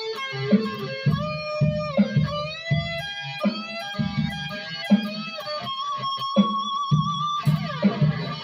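Electric guitar, a modified B.C. Rich M-Bird, playing a lead line with string bends, and a long held note with vibrato about six seconds in.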